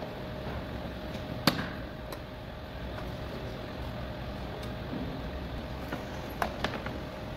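Steady workshop background noise with a faint steady hum. There is one sharp click about a second and a half in, and a few lighter clicks and knocks near the end.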